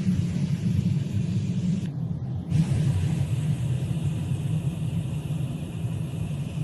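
Loud steady rumble of air and engine noise inside an airliner cabin in flight, coming through the gap where a window panel has broken away. The sound briefly changes about two seconds in.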